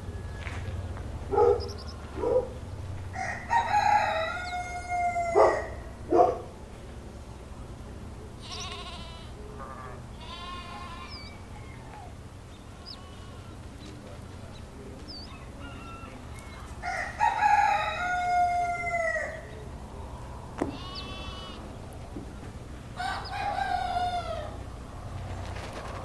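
A rooster crowing three times, the first crow the loudest, with shorter chicken clucks and calls between the crows over a low steady hum.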